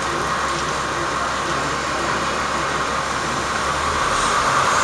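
KiHa 47 diesel railcar's engine running at a steady idle, an even rumble with a constant hiss.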